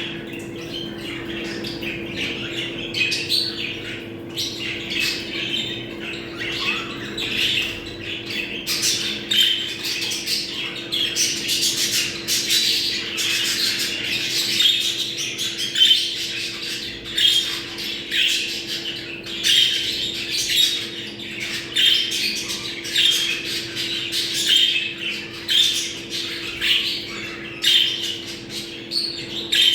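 A group of budgerigars (parakeets) chattering, squawking and warbling without a break: the busy mating chatter of budgies in breeding condition. A faint steady low hum lies underneath.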